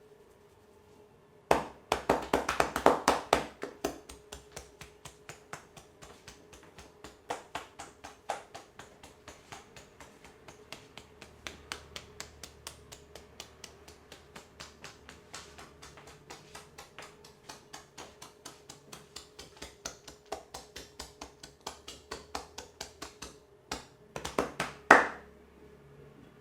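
Hands tapping and slapping rhythmically on a head during a champissage head massage, about three sharp strikes a second. There is a dense, louder flurry at the start and a loud burst near the end.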